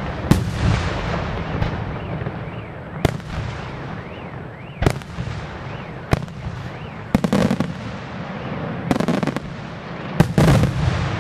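Aerial firework shells from a Luigi Di Matteo display bursting in sharp bangs every second or two, with clusters of rapid reports about seven, nine and ten seconds in, over a continuous rumble between the bursts.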